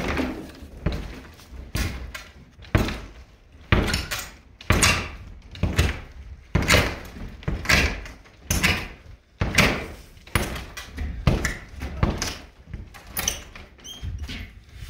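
A 2x4 rammed up against a plywood roof panel again and again, wooden thuds about once a second, as the panel is knocked loose from the rafters.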